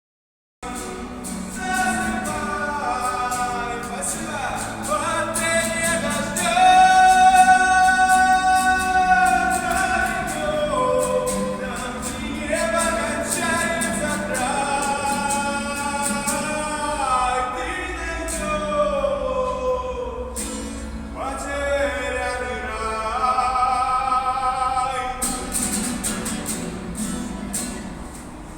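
Someone singing, with long held notes that slide between pitches, and light clicks scattered through it.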